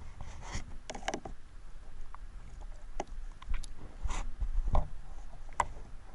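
Muffled knocks, clicks and scrapes picked up underwater, over a low rumble of moving water. There is a small cluster about a second in, and the loudest is a dull thump just before five seconds.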